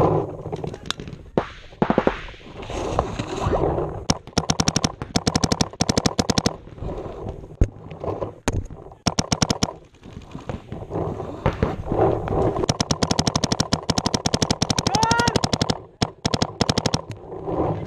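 Paintball markers firing rapid strings of shots in several bursts, the nearest from an Empire Axe Pro electronic marker.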